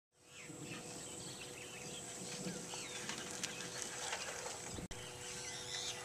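Outdoor rural ambience: scattered bird chirps and calls over a steady background hiss, with a brief dropout about five seconds in.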